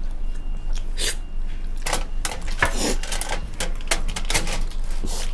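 Aluminium foil spread over a table crinkling under hands, a rapid irregular series of sharp crackles and clicks.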